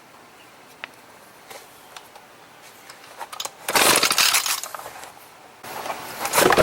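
Recoil starter of an Echo ES250 leaf blower-shredder-vac pulled twice, the small two-stroke engine cranking with a loud rasp each time for about a second but not catching.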